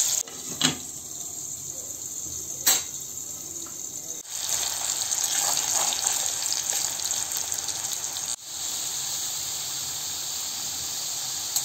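Potato cubes frying in hot mustard oil in an aluminium kadai, a steady sizzle. A metal spatula knocks sharply against the pan twice, about half a second and just under three seconds in.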